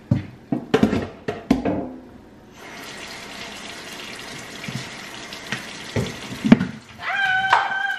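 A few knocks and clatters of things being handled, then a kitchen tap running steadily into the sink. Music with held tones comes in near the end.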